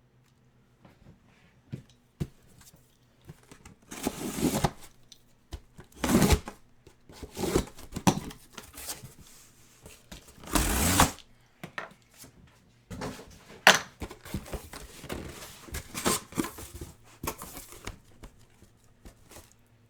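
Cardboard box and its packaging being handled and opened: tearing and rustling, the longest about halfway through, then a run of small knocks and clicks.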